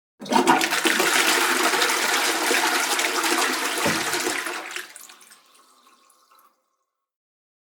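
Toilet flushing: water starts with a sudden rush, runs loudly for about four and a half seconds, then fades away over the next two seconds.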